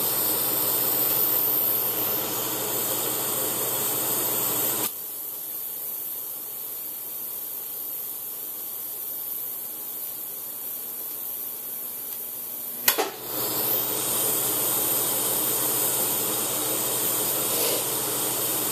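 TIG welding arc hissing steadily, cutting off about five seconds in; after a quieter stretch it is struck again with a sharp crack about thirteen seconds in and hisses on.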